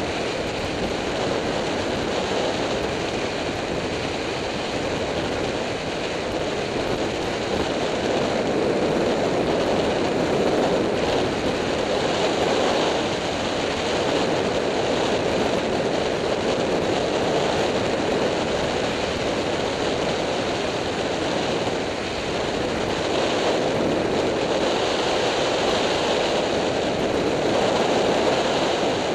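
Steady wind rushing over the camera of a motorcycle at road speed, swelling a little louder twice.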